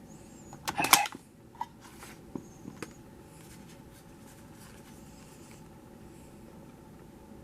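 A quick cluster of sharp clicks and knocks about a second in, then a few lighter clicks over the next two seconds, then only faint steady room noise.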